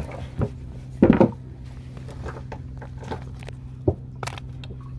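Steady low hum of a river trawler's engine running, with a few sharp knocks and rattles as prawns and small fish are handled in a plastic basket.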